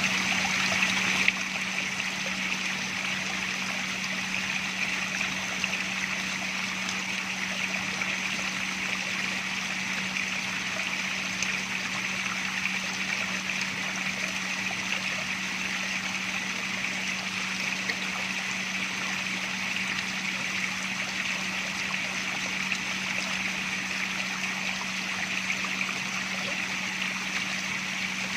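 Water running and trickling steadily, as from a fountain or water feature, over a constant low hum. The sound steps down slightly in loudness about a second in.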